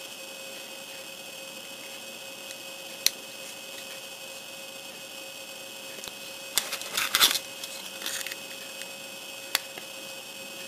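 Small plastic model-kit parts being handled and pressed together: a few sharp clicks, one about three seconds in and one near the end, and a brief cluster of clicks and rustling a little past halfway. A steady electrical hum runs underneath.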